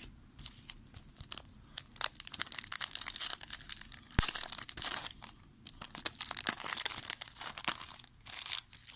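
Trading-card pack wrapper crinkling and tearing open, a dense crackle of handling that starts about two seconds in and goes on for several seconds.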